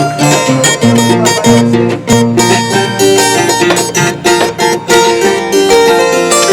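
Background music led by a plucked string instrument, guitar-like, playing a quick run of notes over a steady rhythm.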